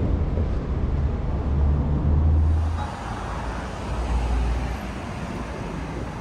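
City street traffic noise: a heavy low rumble for the first three seconds or so, then it changes suddenly to lighter traffic sound with a car going by.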